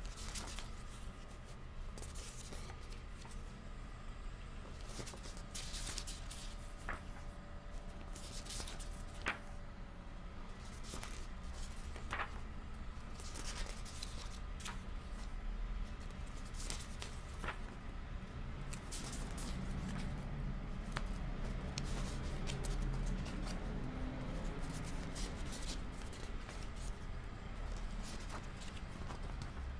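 Pages of a thick softcover book turned by hand: repeated paper rustles and short flicks as each page is lifted and laid over, above a low steady hum.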